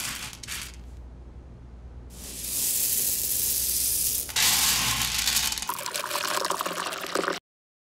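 Water poured in a steady stream into a glass onto ground coffee, filling it, and stopping abruptly near the end. Before it comes a soft rustling hiss of a hand sweeping through roasted coffee beans.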